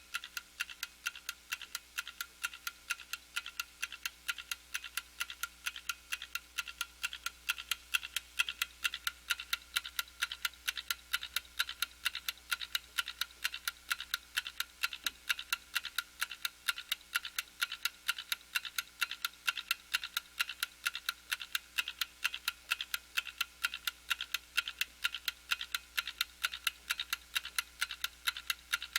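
Clock ticking steadily in quick, even ticks, several a second, getting a little louder about a quarter of the way in.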